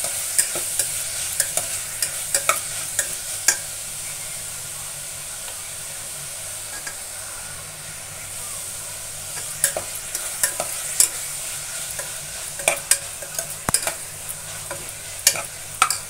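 Chopped onions and tomatoes sizzling in an open pressure cooker, with a steady hiss, while a metal spatula stirs them and clinks and scrapes against the pot. The clinks come in spells during the first few seconds and again through the second half.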